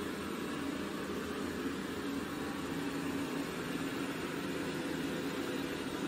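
Dreame X40 Ultra robot vacuum running, a steady whirring hum of its suction motor and brushes.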